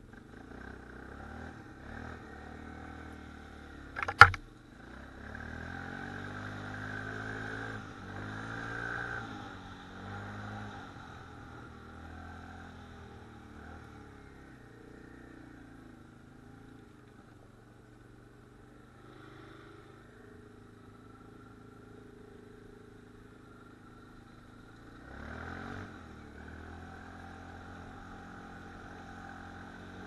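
ATV engine running while being ridden, its revs rising and falling with the throttle. A single sharp knock about four seconds in is the loudest sound, and the engine revs up again near the end.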